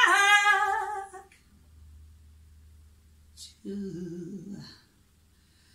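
Woman's blues vocal ad-lib sung without accompaniment: a long, loud held note that fades out about a second in. After a pause comes a short, lower hummed phrase.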